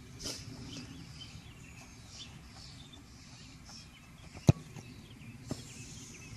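A soccer ball kicked once, a sharp thud about four and a half seconds in, followed a second later by a fainter knock. Birds chirp faintly throughout.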